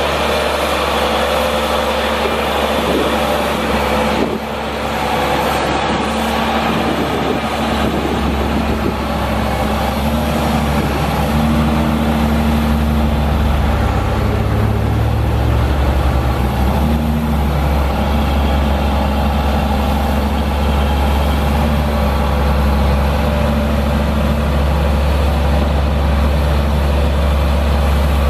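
The Caterpillar C7 diesel engine of a Sandvik DX780R crawler drill rig runs steadily while the hydraulic drill boom is moved, with the engine's tones shifting a little partway through.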